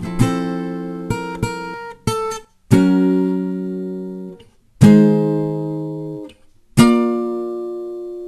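Acoustic guitar ending a piece. A few quick chords come first, then three separate chords about two seconds apart, each left to ring. The last chord rings on and slowly fades away.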